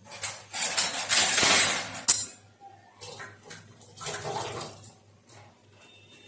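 Tap water running into a stainless steel pot, ending in a sharp clank about two seconds in. Steel dishes clink, with another short splash and clatter about four seconds in.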